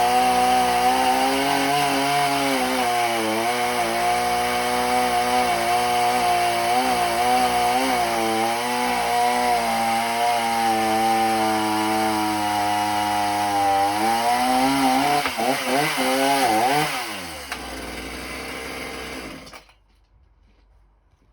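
Mountfield MC3720 small two-stroke chainsaw running at high revs under load, its pitch repeatedly dipping and wavering as the engine bogs: the stock saw struggling with a new bar and chain. Near the end it drops back to a lower, quieter run for a couple of seconds and then cuts out suddenly.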